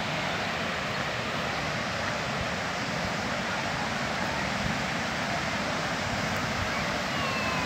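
A steady rushing noise that does not change.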